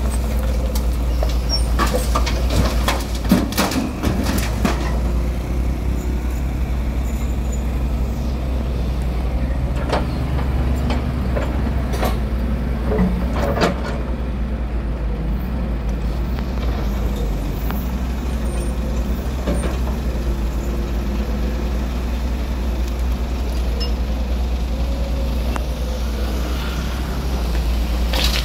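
Crawler excavator's diesel engine running steadily under load while it digs and swings. Bursts of clattering come from soil and rock chunks dropping out of the bucket into the dump truck's steel bed and from the bucket breaking up the ground, in the first few seconds and again about ten to fourteen seconds in.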